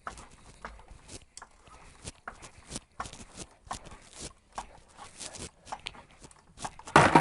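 Scattered light clicks and knocks of metal being handled while a jack is set under the car, then a loud metallic clatter near the end as a bucket of parts is knocked.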